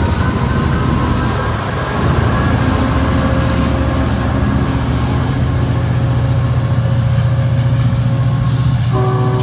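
Amtrak diesel-electric locomotive's engine running close by, a loud steady low hum that grows louder about two seconds in. A faint chord of steady tones comes in near the end.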